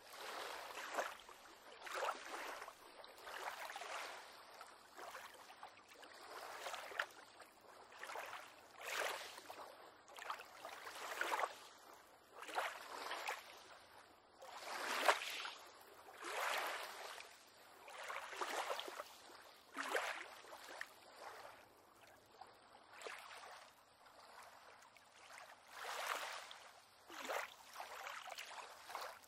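Small waves lapping and splashing against a pier on calm water, one soft splash every second or two.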